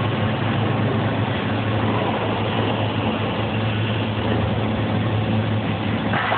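CO2 gas-shielded (MIG) welding arc crackling steadily while laying the final capping pass, over a steady low hum from the welding machine.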